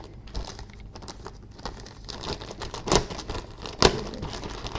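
Plastic sprue bag and styrene model-kit parts being handled, with light crinkling, small clicks, and two sharper plastic clicks about three and four seconds in.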